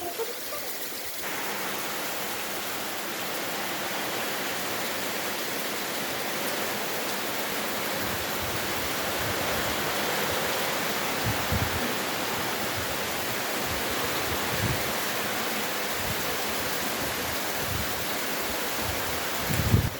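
Steady rushing of water that comes in suddenly about a second in, with a few low bumps near the middle.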